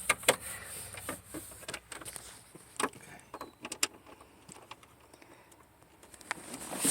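Scattered light clicks and small rattles of parts being handled, irregularly spaced, with quiet between them.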